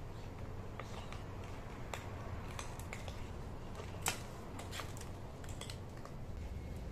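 Cat eating kibble from a plastic bowl: irregular crunching and small clicks, the sharpest about four seconds in, over a steady low hum.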